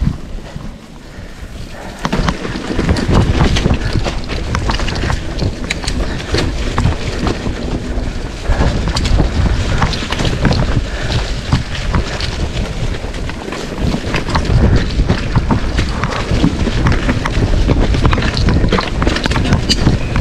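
Wind buffeting the microphone and a mountain bike rattling and knocking over rough trail ground, much louder from about two seconds in.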